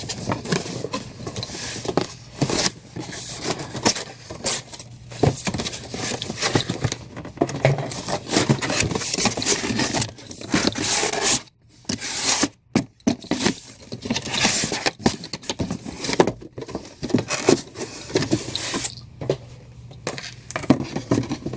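Cardboard comic box being folded and assembled by hand: stiff card panels and flaps scraping, rubbing and creasing, with irregular knocks as they are pushed into place. There are a couple of brief pauses about halfway through.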